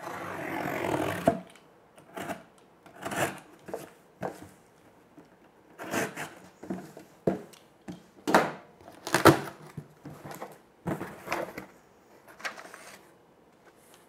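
A cardboard shipping box being opened by hand: packing tape torn at about a second long near the start, then a box cutter and hands working the tape and the cardboard flaps, giving a string of short scrapes, rips and knocks.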